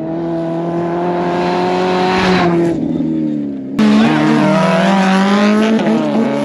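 A motor vehicle's engine running hard at high revs, its pitch holding fairly steady with small dips. A little under four seconds in the sound changes abruptly to another, louder stretch of engine revving whose pitch wavers up and down.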